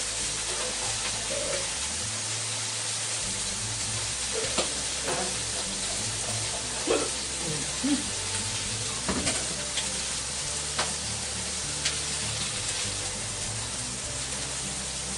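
Sous-vide pork steaks searing in a very hot pan: a steady, loud sizzle, with a few sharp pops scattered through it.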